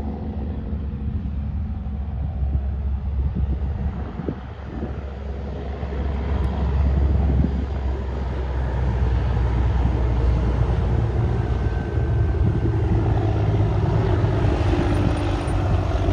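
Heavy truck's diesel engine running steadily with a low rumble, growing louder about six seconds in.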